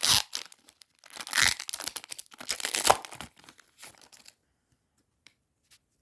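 Foil Pokémon booster pack wrapper being torn open and crinkled by hand, in a few rustling, tearing bursts that stop about four seconds in.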